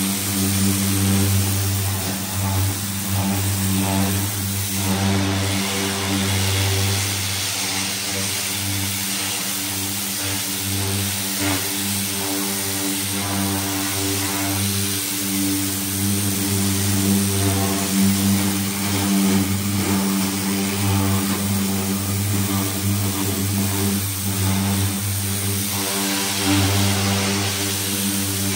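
Pressure washer running steadily: a constant motor-and-pump drone under the hiss of the water jet spraying loosened paint off bare sheet-metal car panels.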